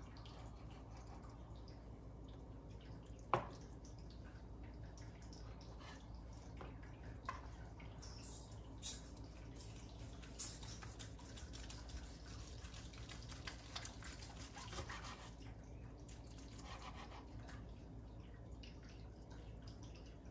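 Knife carving roast pork on a plastic cutting board: quiet slicing and scraping, with a few sharp clicks of the blade on the board, the loudest about three seconds in. A scratchy patch of crackle runs through the middle.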